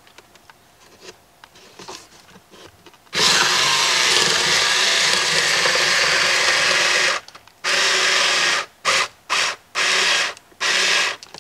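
Battery-powered Blue Ridge rotary cutter's motor running as its blade is pushed through thick corrugated cardboard. It starts about three seconds in and runs steadily for about four seconds, then starts and cuts out in a run of five short bursts as it stalls in board too thick for it and shuts itself off.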